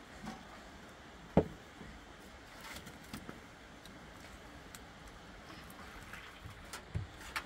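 A sharp knock about a second and a half in, a softer thud near the end, and a few faint clicks over a low, steady background.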